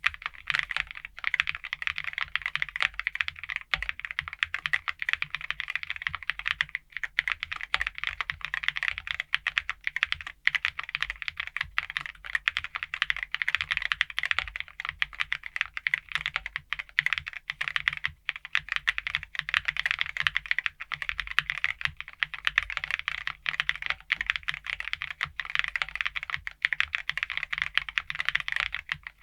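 Continuous typing on a Keychron Q3 Ultra 8K, a gasket-mount aluminum keyboard with Keychron Silk POM Brown tactile switches and thick PBT keycaps: a dense, steady run of key clicks.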